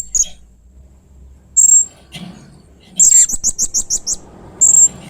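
Blue-crowned hanging parrot (serindit) giving short, shrill high-pitched calls, with a rapid run of about six chirps about three seconds in.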